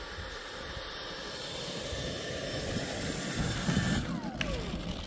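120 mm electric ducted fan of an HSD Jets F-86 Sabre model jet running as it taxis, a steady rushing hiss growing louder. About four seconds in it is throttled back, the hiss dropping away and its pitch falling.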